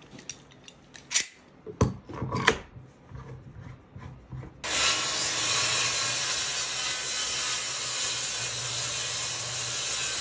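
A few sharp clicks and knocks as quick-grip clamps and the jig are set on the board, then about four and a half seconds in a corded circular saw starts and runs steadily, cutting through the sheet of wood with a steady high whine over it.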